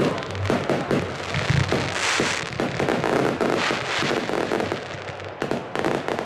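Fireworks display: a rapid, dense run of bangs and crackles from aerial shells bursting, with a rushing hiss about two seconds in.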